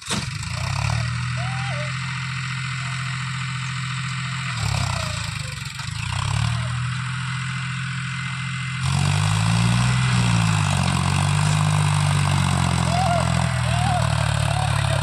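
John Deere 5310 tractor's three-cylinder diesel engine running steadily under load while hauling two trailers piled with sugarcane. It gets louder about nine seconds in, and its pitch wavers up and down.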